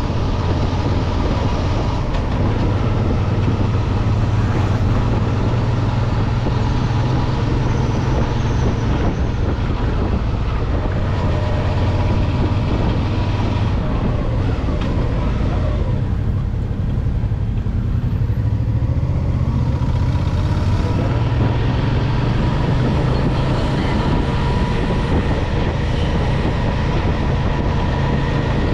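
Motorcycle engine running steadily while riding, with wind and road noise rushing over the microphone; the rushing thins for a few seconds past the middle, then returns.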